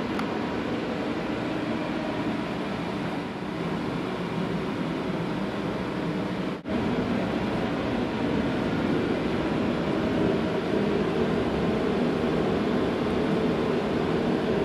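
A steady mechanical drone, broken by a brief dropout about six and a half seconds in.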